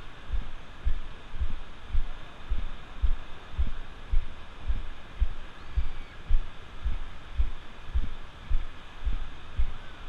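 Footsteps thudding through a body-worn camera, about two steps a second, as the walker strides along wet sand, over a steady hiss of surf.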